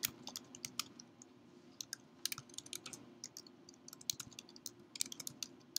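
Typing on a computer keyboard: irregular runs of quick key clicks, bunched into short flurries.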